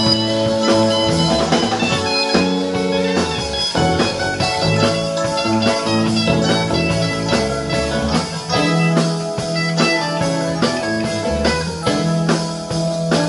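Live rock band playing an instrumental passage with no vocals: electric guitars over electric bass, drum kit and keyboard.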